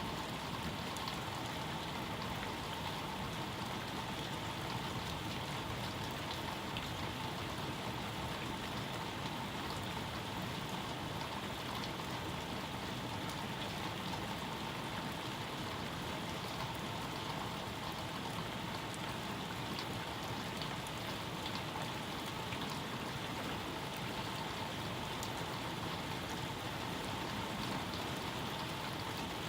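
Steady rain falling, a continuous hiss with scattered drops ticking.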